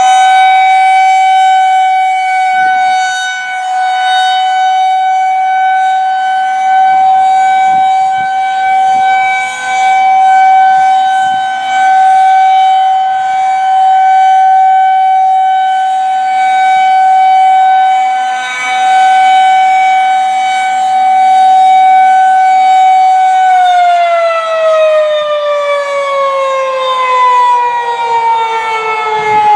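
Federal Signal 2001-130 rotating single-tone warning siren sounding a steady tone at full speed, its loudness swelling and dipping as the rotating head sweeps around. Near the end the pitch begins to fall steadily as the siren winds down at the end of its test.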